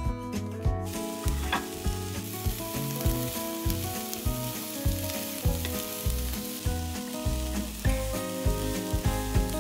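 Food sizzling as it fries in a hot pan; the sizzle starts about a second in and stays steady. Background music with a steady beat runs underneath.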